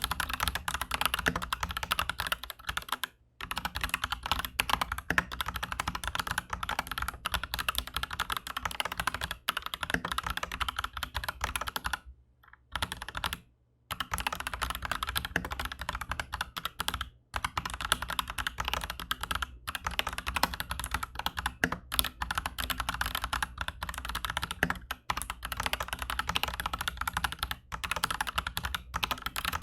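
Continuous typing on an Aflion AF82 mechanical keyboard with Aflion Shadow tactile switches in a steel plate and PBT keycaps: a dense stream of key clacks, with short pauses about three seconds in and again around twelve to fourteen seconds in.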